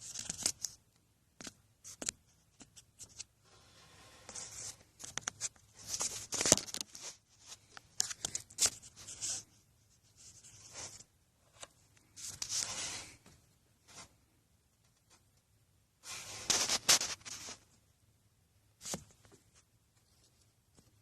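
Handling noise: irregular bursts of scraping and rustling with scattered sharp clicks, the loudest about six and seventeen seconds in.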